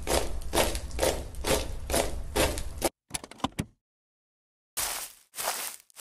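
A rhythmic series of short thuds, about two a second, over a steady hiss; they break off about three seconds in, leaving a few faint clicks and a short silence, then start again near the end.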